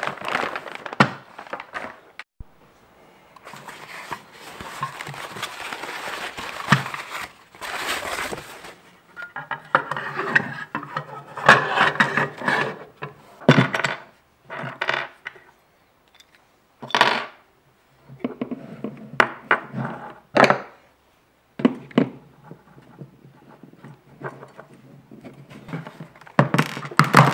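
A plastic parts bag crinkling as it is opened, then a long run of irregular clicks, taps and plastic knocks as the parts of a Hakko FR-301 desoldering gun are handled and worked out of its cracked plastic housing.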